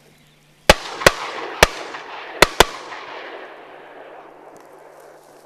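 A volley of five shotgun blasts from duck hunters within about two seconds, the last two almost on top of each other. The echo rolls away and fades over the next few seconds.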